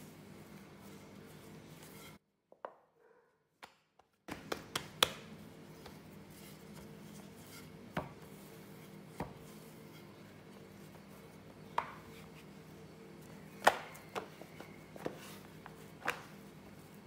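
Wooden rolling pin and hands working a slab of puff pastry dough on a silicone mat: scattered sharp knocks a second or two apart, over a steady low hum. The sound drops out completely for about two seconds near the start.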